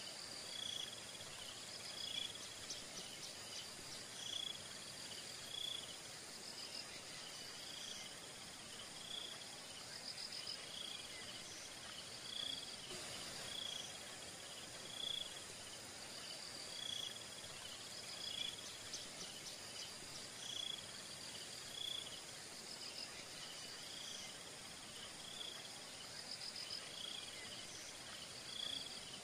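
Insects chirping in a steady chorus: one short high chirp repeating about once a second over a continuous high trill, with occasional clusters of faster ticking pulses.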